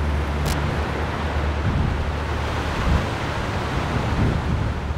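Heavy tropical-storm wind and rain, with gusts buffeting the microphone as a steady low rumble under an even hiss.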